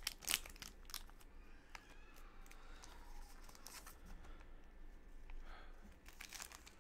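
Wrapper of a Topps Allen & Ginter card pack crinkling with a brief sharp crackle just after the start as it is pulled off the cards. Then faint rustling as the cards are slid out of the wrapper and handled.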